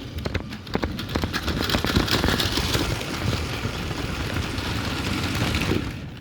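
Lego train running along plastic track, its small electric motor whirring and the wheels rattling and clicking over the rails, heard close up from a phone riding on the train.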